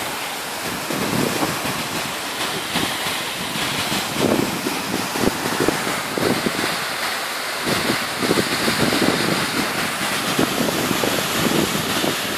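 Waterfall's falling water making a steady, loud rushing noise, with wind buffeting the microphone now and then.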